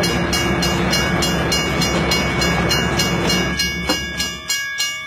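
Passenger train running with a dense steady rumble; about three and a half seconds in, this gives way to a regular rhythmic clicking of about three beats a second.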